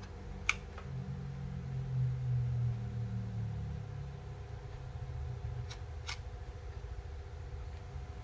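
A few light, sharp clicks from handling a smartphone gimbal, one about half a second in and two close together near six seconds, over a low steady hum.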